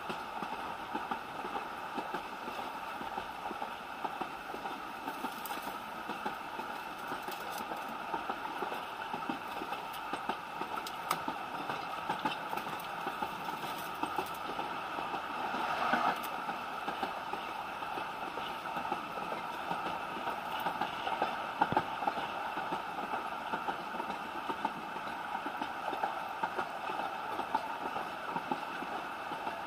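Ride noise inside a 3 ft narrow-gauge steam railway carriage on the move: a steady rumble and rattle from the wheels and bodywork, with scattered clicks and knocks. The sound swells briefly about halfway through, and there is a sharp knock a few seconds later.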